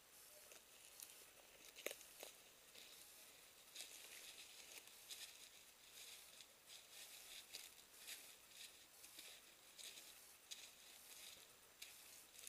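Faint footsteps crunching and rustling through dry leaf litter, with one sharper click about two seconds in.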